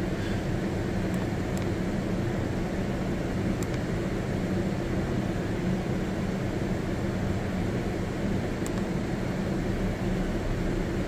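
A steady low mechanical hum, with a few faint clicks.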